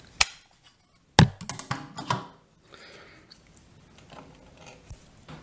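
Small plastic clicks and knocks from handling a USB charging lead and plugging a small drone battery into its connector: two sharp clicks about a second apart, the second the loudest, followed by light rattling and a few faint ticks near the end.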